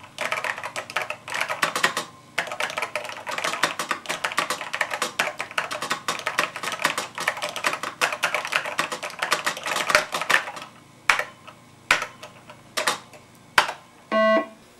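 Rapid typing on a computer keyboard for about ten seconds, then several separate key presses, then a short buzzy beep near the end.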